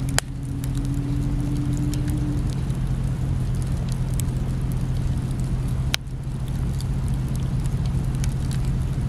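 Wood campfire burning, with scattered small crackles and pops over a steady low rumble; two sharper clicks, one just after the start and one about six seconds in.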